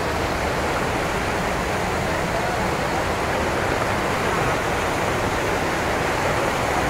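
Waterfalls plunging into a river, heard close by: a steady, unbroken rush of falling water.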